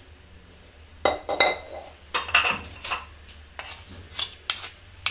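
Spoon and spatula scraping and clinking against a serving platter while potato salad is spread out: a quick run of short scrapes and clicks starting about a second in.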